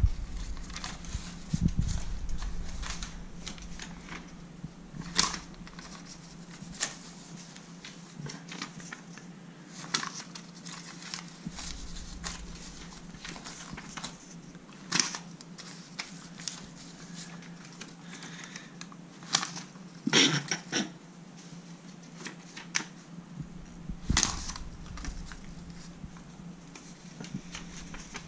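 A puppy chewing and pawing at paper banknotes: scattered crinkles and rustles of paper, a few sharper than the rest, over a faint steady hum.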